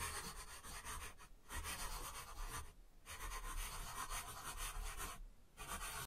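Scribbling on paper, as a sound effect: a scratchy drawing sound in four stretches with brief pauses between them.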